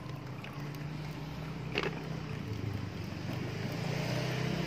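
A motor running with a steady low hum that grows a little louder near the end, with one short click about two seconds in.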